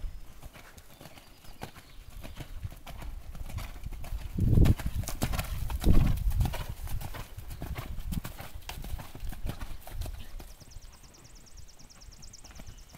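A horse's hooves beating on sand arena footing at a canter. The hoofbeats are loudest as the horse passes close, about four to six seconds in, then fade as it moves away.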